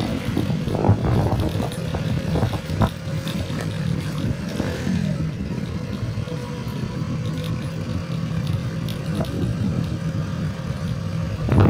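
Small motorcycle engine running steadily while riding, with a few short knocks and rattles about one and three seconds in.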